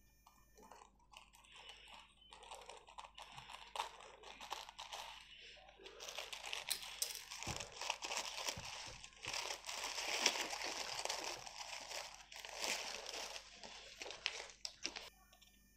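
Clear plastic packet crinkling as it is cut with scissors and then pulled apart by hand, louder from about six seconds in, with paper banknotes rustling near the end as they come out.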